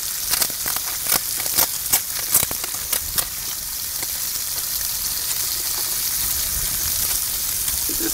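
Food sizzling steadily in a pan on a portable camp stove, with a string of sharp clicks and pops over the first three seconds.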